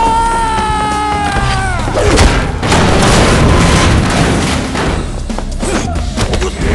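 Action-film fight sound mix: music under heavy booming hits and crashes, with bodies slamming into metal lockers. It opens with a high wailing tone that rises and holds for about two seconds before the impacts begin.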